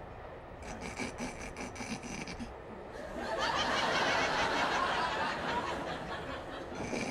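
Studio audience laughter, swelling loudly about three seconds in after a quieter stretch of faint rustling.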